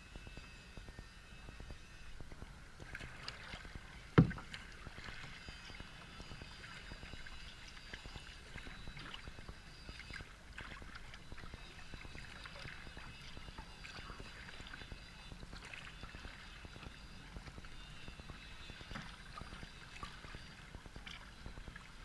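Sea kayak being paddled: water splashing and lapping at the hull with irregular paddle strokes, heard from a camera on the kayak's front deck. One sharp knock about four seconds in.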